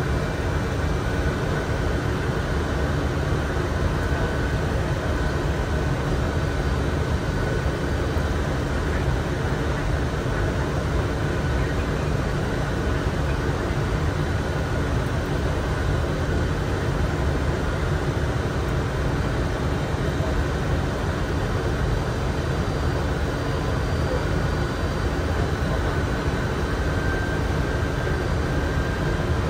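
Steady cockpit noise of a Boeing 747-400 on approach: an even rush of airflow and engine noise, with a faint high tone over it.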